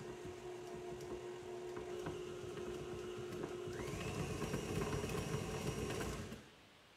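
Tilt-head stand mixer running steadily as it mixes cookie dough. About four seconds in it is sped up, its whine rising to a higher pitch and holding there, and it is switched off near the end.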